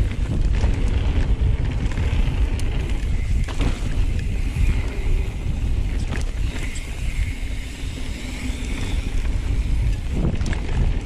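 Wind rushing over the microphone and knobby tyres rolling over a dirt trail as a mountain bike descends at speed, with a few sharp knocks and rattles from the bike going over bumps.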